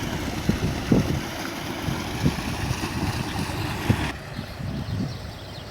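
Diesel engine of a Case 580N backhoe running steadily, with irregular low knocks. About four seconds in, the higher hiss drops away.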